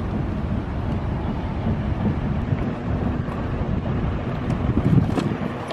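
Steady low rumble of wind on the microphone, with a single knock about five seconds in as gear is handled in a bass boat's open storage compartment.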